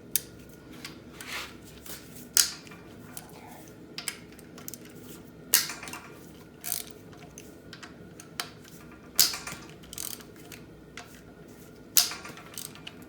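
Hand ratchet and socket breaking bolts loose on a Chevrolet 5.3 LS V8: irregular sharp metallic clicks and snaps, about one every second, with a few louder cracks as bolts let go and light clinks of metal tools.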